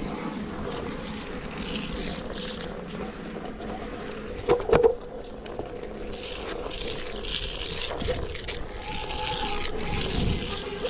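Electric one-wheeled board rolling down a hail-dusted dirt trail: a steady motor whine under the hiss and crunch of the tyre on the ground. A brief loud knock sounds about halfway through.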